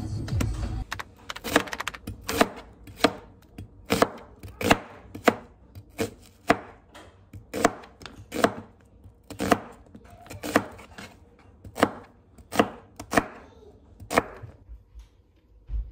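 Kitchen knife chopping an onion on a plastic cutting board: about twenty sharp, separate chops at an unhurried one to two per second. The chopping stops about two seconds before the end.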